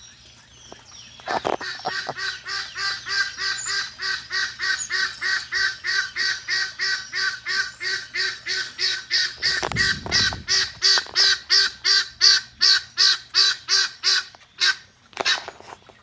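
A zoo bird calling in a long, even series of short calls, about three a second, growing louder toward the end, with one last call after a brief pause.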